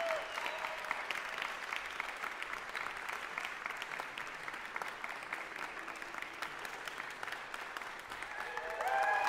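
Audience applauding steadily in a concert hall, with a few voices calling out near the end as the clapping swells.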